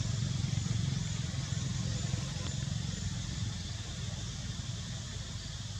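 Steady low rumble of a motor engine running at a distance, easing off slightly in the second half. Faint high chirps sound now and then over it.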